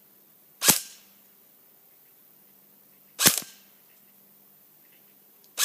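Three single shots from a G&G CM16 Raider S airsoft electric rifle fired on semi-auto, about two and a half seconds apart, each a sharp crack with a short tail.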